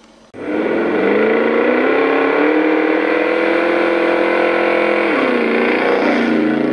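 Simulated car engine sound revving up sharply, holding a steady high pitch, then dropping and settling lower about five seconds in.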